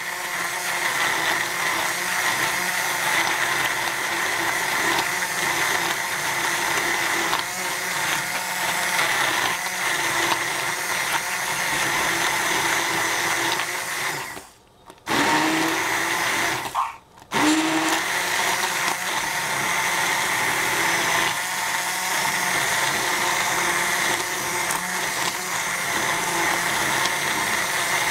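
Hand-held immersion blender running in a saucepan, puréeing cooked strawberry and apricot sauce. About halfway through, the motor stops twice for a moment and each time spins back up.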